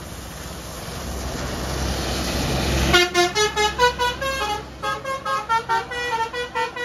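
A vehicle approaching, its noise growing steadily louder for about three seconds, then a basuri-style telolet horn playing a quick melodic tune of short, changing notes.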